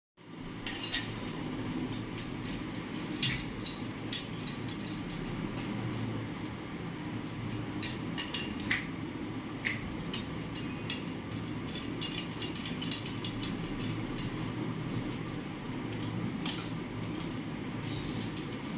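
A steady low rumble with frequent sharp, light clicks and clinks at irregular moments.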